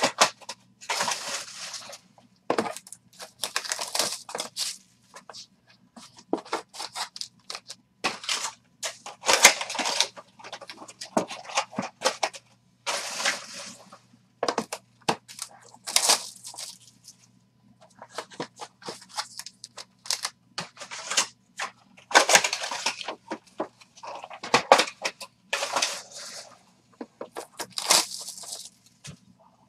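Plastic shrink-wrap and foil packaging crinkling and tearing in irregular bursts as sealed trading-card boxes are handled and unwrapped, with scattered sharp clicks and taps of the boxes being moved.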